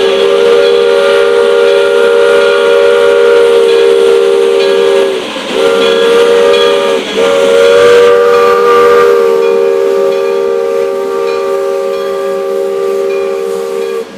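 Steam locomotive's chime whistle sounding several notes at once, very loud and close: a long blast, a short one, then another long one, the pitch sagging briefly at each break. It cuts off suddenly near the end.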